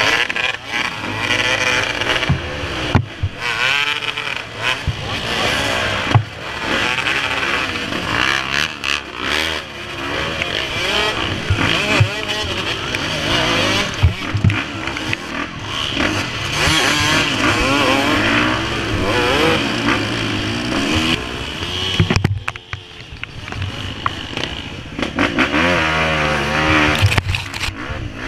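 Several off-road dirt-bike engines revving up and down at once, pitches rising and falling over each other, as the bikes labour up a muddy, congested climb. The engines drop back briefly about three quarters of the way through, then pick up again.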